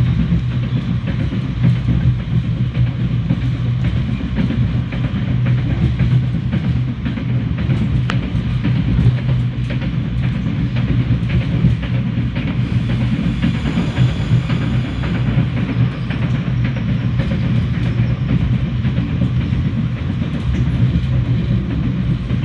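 Commuter train running, heard from inside a passenger car: a steady low rumble of wheels on rails with many small clicks and rattles throughout.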